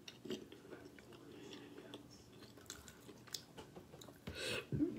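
Close-miked chewing of chicken Alfredo pasta and broccoli, with small wet mouth clicks, and a brief louder hiss near the end.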